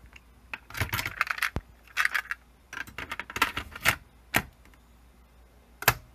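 Plastic clicks and clatter of a Tandy CCR-82 computer cassette recorder as a cassette is loaded: the cassette door is opened, the tape goes in and the door is pressed shut in several bursts of clicks. Near the end come two single sharp clicks.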